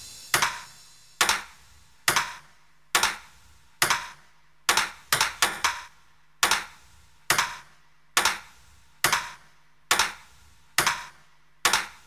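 Sharp, bright clicks of a ping-pong ball being struck, evenly spaced at a little under one a second, with no music under them; near the end the hits come closer together.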